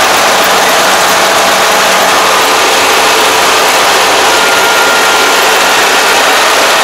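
Kubota ARN460 combine harvester's diesel engine running steadily close up, with a faint high whine joining about four seconds in.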